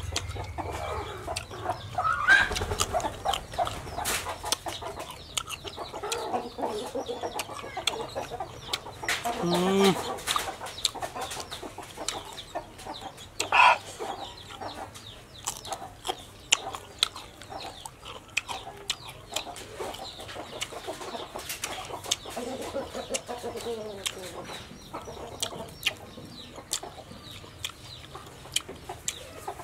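Chickens clucking, with a few longer calls, over close crunching and chewing of raw crisp vegetables such as winged beans.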